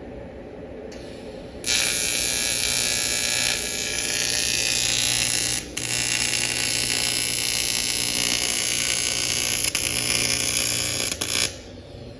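TIG welding arc on a turbocharger: a steady hiss with a low buzz under it, struck about a second and a half in, broken off briefly near the middle, and stopped about a second before the end.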